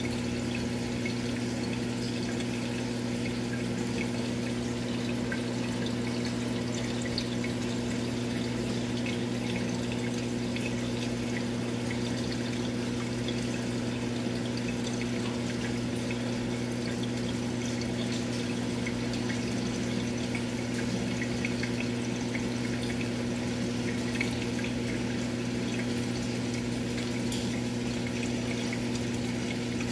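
Aquarium pump running: a steady electric hum under constant trickling, bubbling water.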